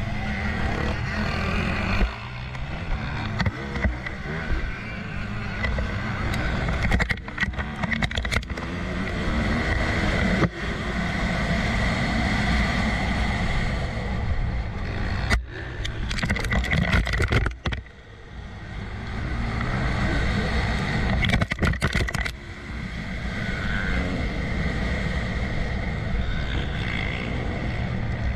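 Onboard sound of a motocross bike's engine under race throttle on a dirt track, rising and falling as the rider accelerates and backs off for turns. About two thirds of the way through it drops away and then builds back up, and there are several very short breaks in the sound along the way.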